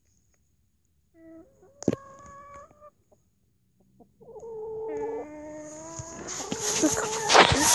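Chickens clucking and calling close to the phone's microphone, starting about a second in, with a sharp tap about two seconds in and longer drawn-out calls from about four seconds. In the last couple of seconds rustling and a loud knock on the phone join the calls.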